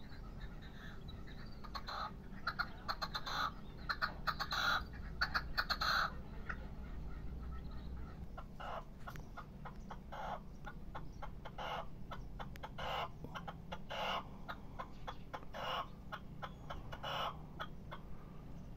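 Young male red-legged partridges kept as decoys calling from their cages: short clucking calls, closely bunched in the first few seconds, then single calls about a second apart. These are their plain calls, not the soft courtship cuchicheo, which they do not yet give for lack of breeding drive.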